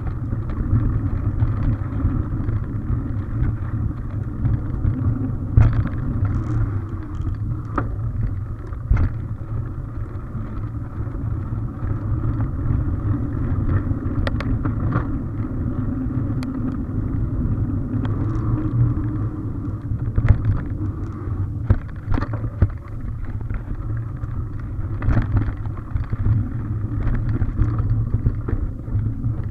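Mountain bike ridden over a dirt forest trail, heard from a camera on the bike: a steady low rumble of tyres and vibration, with sharp knocks and rattles as it goes over bumps, a cluster of them about a quarter of the way in and more in the last third.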